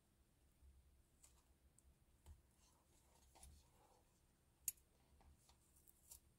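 Faint scattered clicks and light rustling of tweezers and fingertips working a fabric trim piece onto a plastic model door panel, with one sharper click about two-thirds of the way through.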